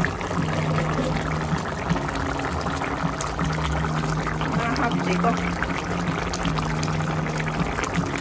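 Vegetable curry bubbling at a boil in a kadai: a busy crackle of small pops and bursting bubbles, with a low hum that comes and goes in stretches of a second or two.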